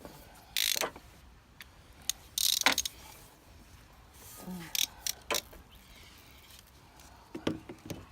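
Short bursts of ratcheting clicks and knocks from hand work on car parts. The densest run of rapid clicks comes about two and a half seconds in, with single knocks and shorter bursts about a second in, around five seconds and near the end.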